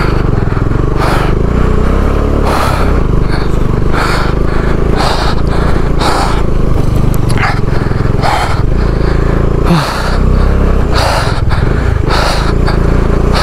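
Motorcycle engine running steadily at low road speed on a rough, stony dirt track, with short rattling bursts of noise about once a second as the bike jolts over the rocks.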